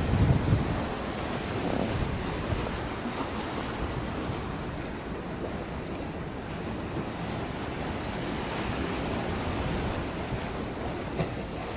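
Wind buffeting the microphone over a steady wash of sea waves, with heavier low gusts of wind rumble around the start.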